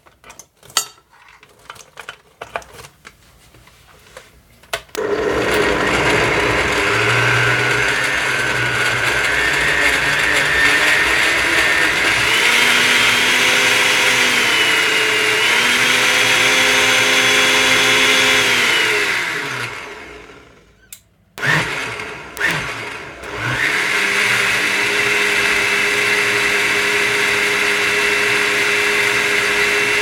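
Kitchen blender making a smoothie: a few light clicks and knocks, then the motor runs for about fifteen seconds with its pitch shifting up and down. It winds down, a few knocks follow, and it starts again and runs steadily.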